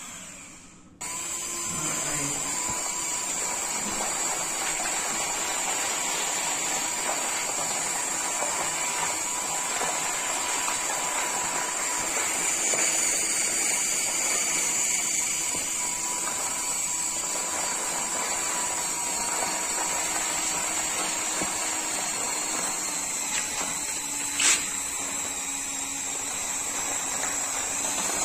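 Small electric drive motor and gearbox of a homemade RC model tractor whining steadily under load as it pulls a leveller blade through loose sand, starting abruptly about a second in. A single sharp click near the end.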